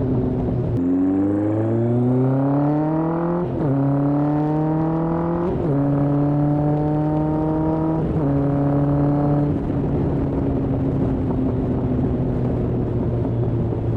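Kawasaki ZRX1200R's inline-four engine breathing through Yoshimura TMR-MJN carburettors, accelerating hard through the gears: the note climbs, drops at three upshifts and climbs again after each, then settles to a steady cruise for the last few seconds.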